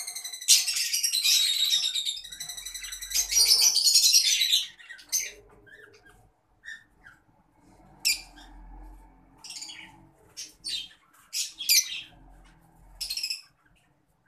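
A flock of Fischer's lovebirds calling: loud, rapid high-pitched chattering for the first four seconds or so, then scattered short, sharp chirps.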